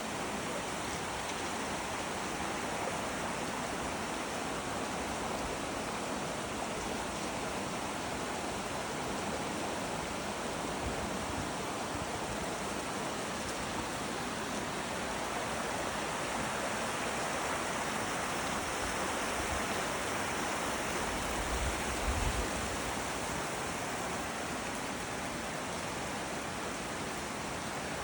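Mountain creek running over rocks: a steady rush of flowing water, with a brief low rumble about three-quarters of the way through.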